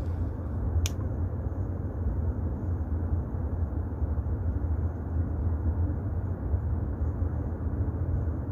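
Steady low outdoor rumble, with a single sharp click about a second in.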